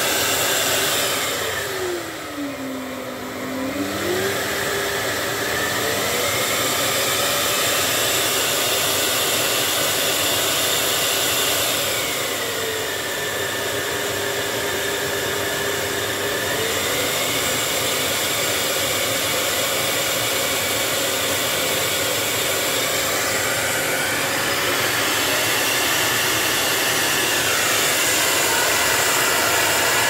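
Samsung VW9000 (VW17H9090HC) bagless canister vacuum cleaner running loudly. Its motor pitch and level drop and climb back a few times, about two seconds in, around twelve seconds in and near the end, as the suction power is stepped down and up from the handle controls.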